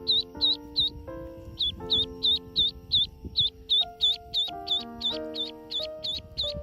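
Background music of sustained chords, with a high, rapid peeping over it, about three peeps a second, from ducklings.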